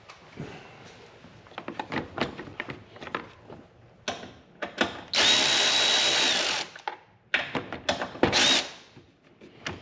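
Cordless electric ratchet running a bolt into the Can-Am Defender's headlight bezel, not yet tightened down: one steady motor whine lasting about a second and a half, then a second short burst a couple of seconds later. Light clicks and knocks come before, as the bezel and bolt are handled.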